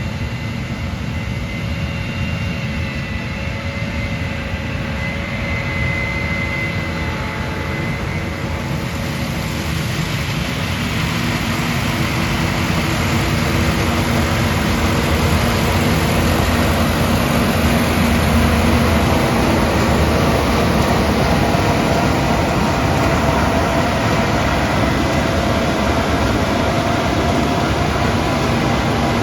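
Combine harvester running as it comes closer, a dense mechanical roar that gets louder over about ten seconds and then holds steady and loud.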